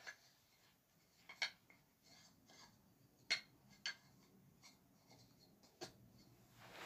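Wooden toy train track pieces being handled and fitted together: a few faint, sharp wooden clicks a second or two apart, otherwise near silence.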